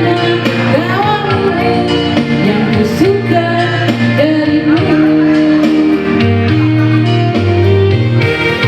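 A song with a singing voice over instrumental backing that has a steady bass line; the voice glides between notes.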